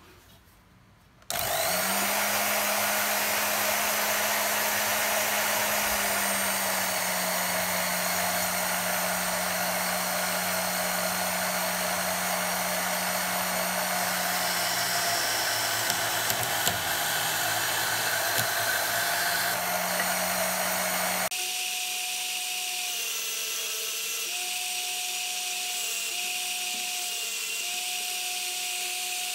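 Band saw starting up about a second in and running steadily: a motor hum under a high blade hiss. About two thirds of the way through, the sound changes abruptly to a thinner, steady higher tone that dips briefly several times.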